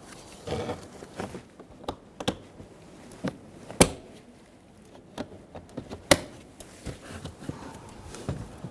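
Sharp plastic clicks and light knocks from wiring connectors being snapped back onto a car's interior door panel, with two louder clicks about four and six seconds in.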